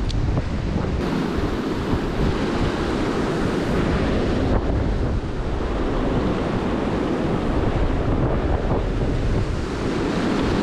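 Fast river rapids rushing over rocks in a steady, loud wash, with wind buffeting the microphone.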